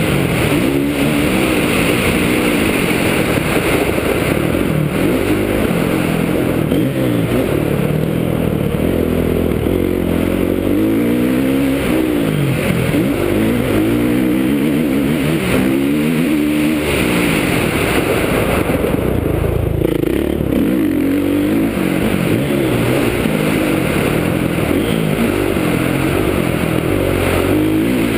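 Kawasaki KX450F's single-cylinder four-stroke engine under hard acceleration, its pitch climbing and dropping again and again as the rider works the throttle and shifts.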